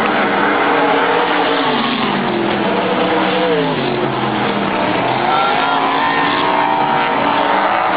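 Several vintage stock cars racing on a dirt oval, their engines rising and falling in pitch as the pack accelerates past and lifts off into the turns, several engines overlapping.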